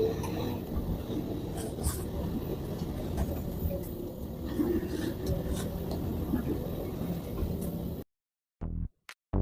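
Vehicle on the move: steady engine and road noise with scattered knocks and rattles. It cuts off abruptly about eight seconds in, and the first beats of electronic music start just before the end.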